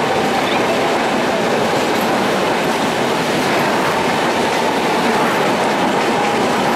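Passenger coaches of an AC express train rolling past at slow speed: a steady, loud rumble of wheels on rails with some clickety-clack, and a faint thin wheel squeal as the train takes a curve.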